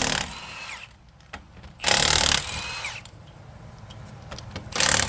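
Impact wrench running in short bursts of about half a second, three times, each followed by a falling whine as it spins down.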